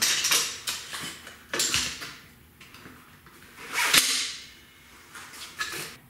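Clicks, scrapes and knocks of a Rabaconda manual tire changer's bead breaker and duck head being worked against a motorcycle wheel rim and tire. A single sharp clack about four seconds in is the loudest sound.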